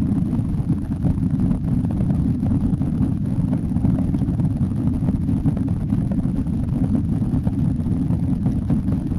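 Steady low rumble inside the cabin of a Boeing 767 under take-off power: jet engine and airflow noise with no changes.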